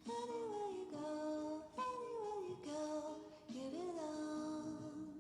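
Music: a high melody of held and sliding notes over steady lower notes.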